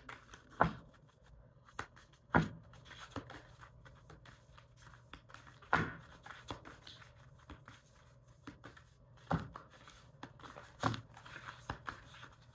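Tarot cards being handled: about half a dozen sharp card snaps and taps at irregular intervals, over a faint low steady hum.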